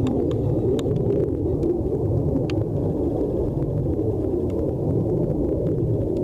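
Steady low rumbling noise with faint, scattered light ticks over it.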